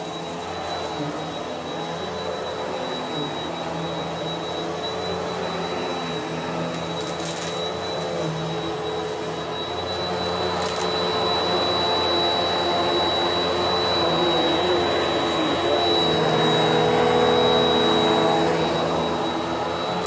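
Bissell PowerForce Helix Turbo bagless upright vacuum cleaner running over carpet: a steady motor drone with a high whine, getting louder about halfway through. Now and then a short crackle of grit and dust being sucked up the machine.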